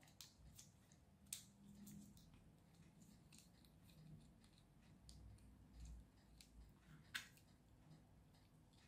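Near silence with a few faint, scattered clicks of small plastic kit pieces being handled and pushed together, the sharpest about seven seconds in.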